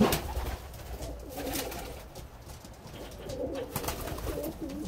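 Domestic pigeons cooing, several calls overlapping, with a sharp knock at the very start.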